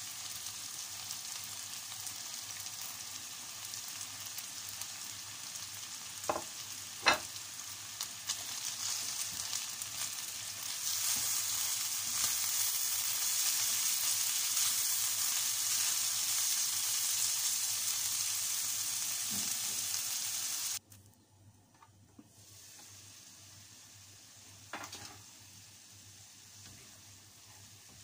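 Chicken, carrots and baguio beans sizzling in oil in a frying pan while a wooden spatula stirs them, clacking against the pan twice about six and seven seconds in. The sizzle grows louder partway through, then drops suddenly to a faint sizzle, with one more knock of the spatula near the end.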